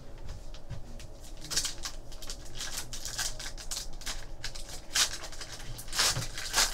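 Foil wrapper of a trading-card pack crinkling and tearing as it is ripped open by hand, in irregular short crackles, the loudest about five and six seconds in.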